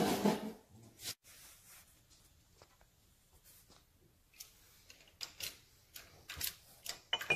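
Handling noises of an aluminium motorcycle engine cover being carried to and set on a hydraulic shop press: scattered clicks and knocks, a sharp one about a second in, then a quicker run of metal clinks in the last few seconds, with a short metallic ring near the end.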